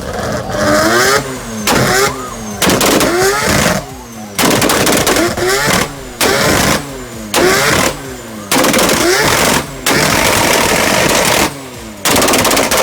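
Car engine revved hard again and again through a loud exhaust: about ten blips, one every second or so, each climbing and then falling back with short dips between.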